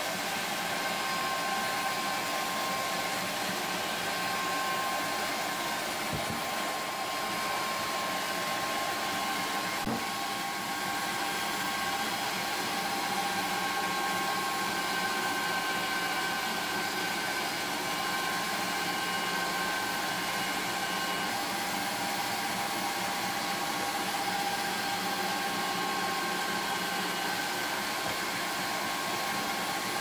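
Tefal HV8 1800 W electric meat grinder running steadily with an even whine. It is under load, forcing spiced mince through the sausage-stuffing funnel into the casing.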